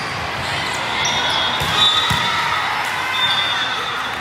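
Busy indoor volleyball tournament hall: a steady din of voices from players and spectators across many courts, with a few dull thuds of volleyballs being hit and bouncing on the court about halfway through, and short high squeaks or whistles.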